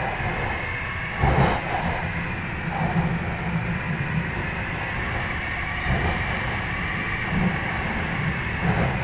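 Cabin noise of a Bombardier metro train pulling out of a station into a tunnel: a steady rumble of wheels on rail under a high whine. There is one loud knock about a second in and softer thuds after it.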